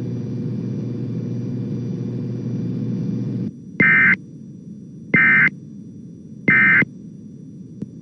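A steady low hum and hiss on the radio feed, then about three and a half seconds in, three short, loud warbling data bursts about 1.3 s apart. These are the Emergency Alert System end-of-message codes, which close the flash flood warning broadcast.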